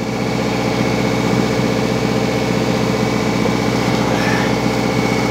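Steady hum of a small engine running without let-up, with a fast fine flutter in it, while a spinning reel is cranked to bring in a hooked fish.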